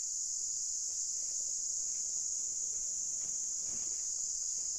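Insects chirring in a steady, high-pitched drone that does not change.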